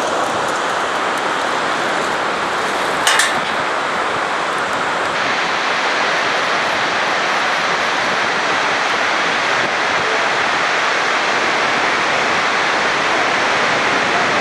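Steady loud rushing of river water in the gorge below the bungee bridge, with a short sharp clink about three seconds in.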